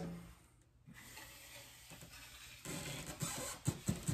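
Steel drywall knife scraping wet drywall mud, loading off the pan and spreading it over the joint in a feathering pass. The scraping is faint at first and grows louder about three seconds in, with a few light clicks.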